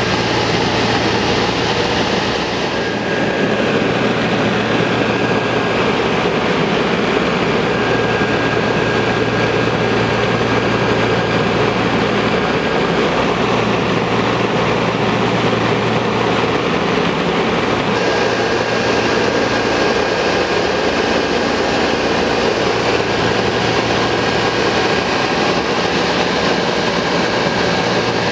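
Steady drone of a Douglas DC-3's twin radial engines and propellers in cruise flight, heard from inside the cockpit.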